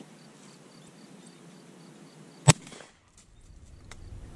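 A single shotgun shot about two and a half seconds in, sharp and loud, followed by a faint click about a second later.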